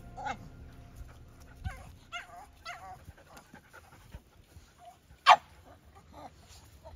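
Dingo whining and whimpering in short wavering calls, with one much louder sharp yip about five seconds in.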